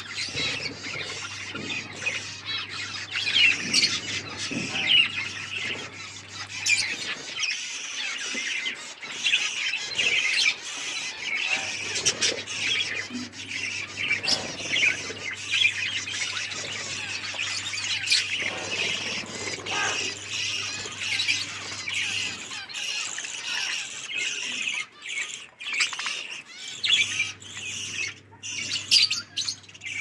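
A flock of budgerigars chattering without pause, a dense mix of warbles, chirps and squawks, with sharp clicks here and there.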